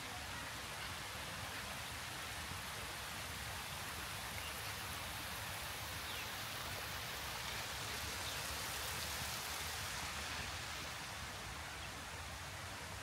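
Water running and splashing down a stepped cascade (a water staircase) in a steady, even rush.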